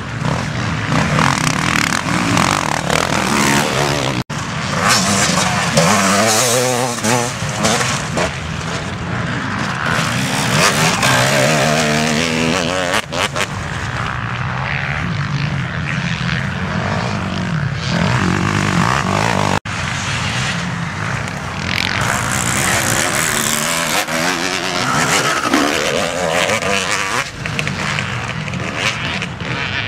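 Off-road racing motorcycle engines revving and accelerating as the dirt bikes ride the course, the pitch rising and falling with the throttle. The sound drops out briefly twice.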